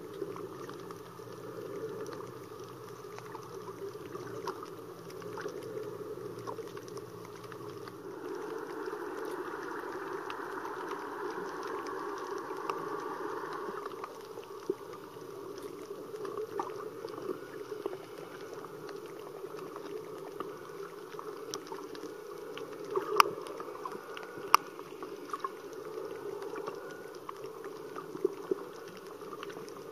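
Underwater reef ambience: steady muffled water noise with scattered sharp clicks. A brighter hiss rises for several seconds about a third of the way in, and two louder clicks come close together about three quarters of the way through.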